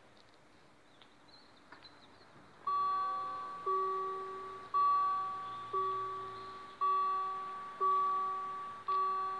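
Level-crossing warning bell starting almost three seconds in and ringing about once a second, each ring sharp and fading. It is the crossing's warning that a train is approaching and the barriers will close.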